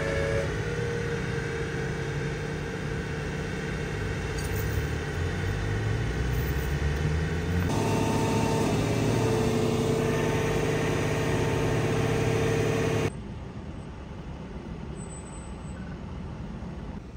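Idling vehicle engines, including a truck's, as a steady low rumble with a steady whine over it. The sound changes abruptly about eight seconds in and turns quieter near the end.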